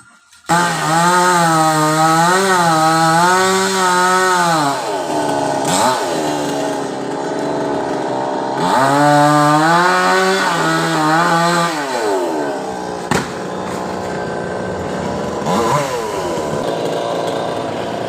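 Chainsaw running at high revs while cutting coconut palm wood. It starts abruptly, and its pitch wavers and sags as the chain bites. It eases off twice and revs up again.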